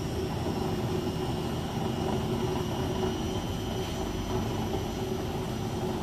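Beko WS832425S washing machine on its second intermediate spin with an unbalanced load: a steady motor whine over the low rumble of the spinning drum.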